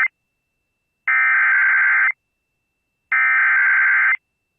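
Emergency Alert System (SAME) header: buzzy digital data tones in bursts about a second long, repeated every two seconds, with two full bursts after the tail of the previous one. These bursts are the coded header that opens a severe thunderstorm warning broadcast.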